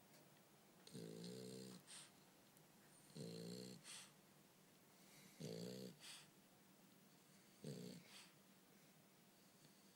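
French bulldog snoring: four snores about two seconds apart, each followed a moment later by a short huff of breath.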